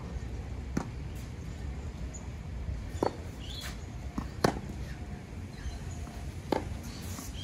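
Tennis ball struck by rackets in a baseline rally: four sharp pops a second or two apart, the loudest about four and a half seconds in.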